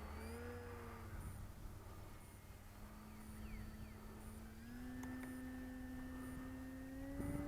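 Faint whine of an E-flite Carbon-Z Cessna 150's electric motor and propeller, a steady pitch that steps up about two-thirds through and again near the end as the throttle is opened to go around for another landing attempt.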